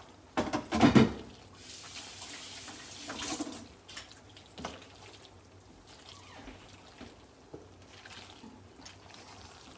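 Elbow macaroni and cheese sauce being dumped together and gently stirred in a pot: wet, squelchy mixing with scrapes and clicks of the spoon, loudest about a second in.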